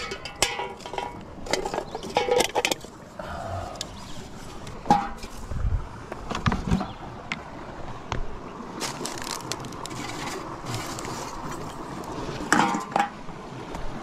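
Rustling and snapping of dry twigs and brush with scattered short clicks and knocks, the handling and footstep noise of someone moving over creek-side rock, with a few low thuds midway through.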